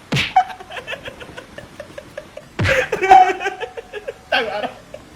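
A person laughing in three bouts of quick, repeated pulses; the bouts start sharply at the beginning, about two and a half seconds in, and near the end.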